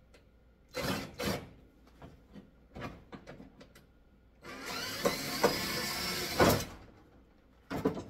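Cordless drill driving out a Phillips screw from a tanning bed's plastic end cap: a short burst about a second in, then a longer run of about two seconds past the middle, with small clicks and knocks of handling between.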